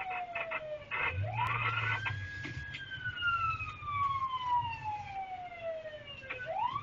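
Emergency-vehicle siren on a wail cycle. It rises quickly about a second in, slides slowly back down over about four seconds, and rises again near the end.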